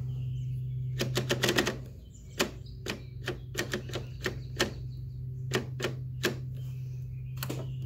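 Rotary channel selector of a Zenith colour TV being turned by hand, clicking through its detents: a quick run of clicks about a second in, then single and paired clicks, over a steady low hum.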